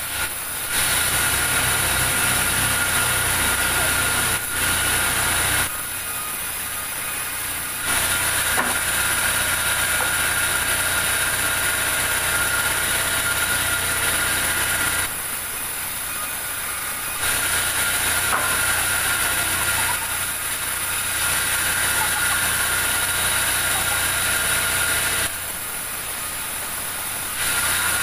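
Large vertical band saw running with a steady high whine as wooden slabs are ripped through the blade. It is louder during the cuts and drops for a couple of seconds between passes, three times.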